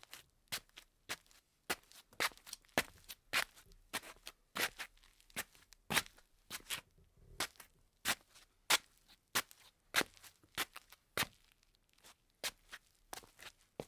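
Slippers shuffling on a tile floor: a steady run of short scuffing steps, about two or three a second, uneven in strength.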